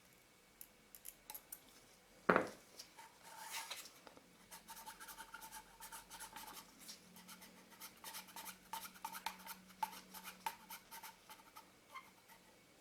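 Small metal tools and lens parts clicking and scraping during hand reassembly of a camera lens. There is one sharp knock about two seconds in, then a long run of light ticks and scratches.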